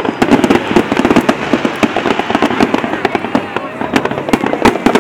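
Fireworks going off continuously: a dense, unbroken run of sharp bangs and crackles, many each second.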